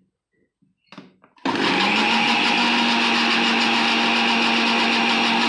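Countertop electric blender switched on about one and a half seconds in, its motor quickly spinning up to speed and then running steadily, blending cream.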